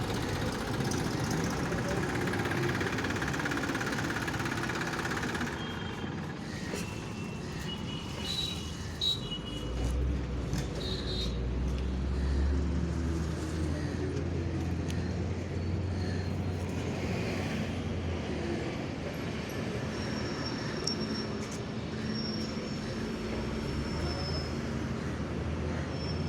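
Vehicle engine running with road traffic noise; a deep engine hum swells about ten seconds in and fades some eight seconds later.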